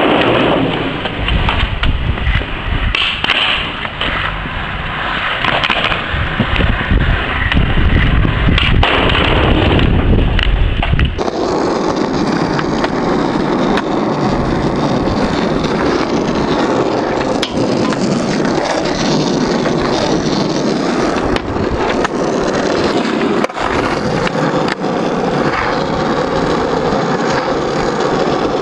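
Skateboard wheels rolling over pavement with a continuous grinding noise, broken by occasional sharp clacks of the board. About eleven seconds in the rolling changes from a deep rumble to a brighter, steadier hiss.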